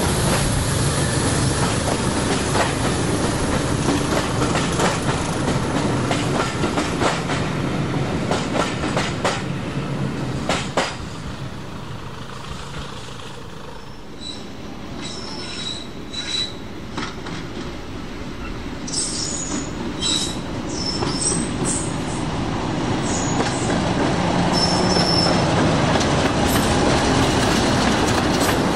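A diesel-hauled train running past, wheels clicking over rail joints, with several short high wheel squeals in the middle stretch. Its sound is loudest at first, eases in the middle and builds again near the end.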